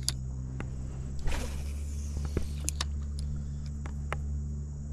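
A steady low mechanical hum, like an engine running, with a few sharp clicks and a short hiss with a falling high tone about a second and a half in.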